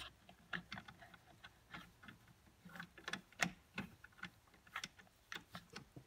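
Faint, irregular small metallic clicks and taps as the brass centre screw of a Vaillant boiler circulating pump is threaded back in by hand.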